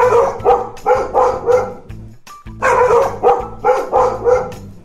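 Dog barking in two quick runs of about five or six sharp barks each, with a short pause between them, over background music.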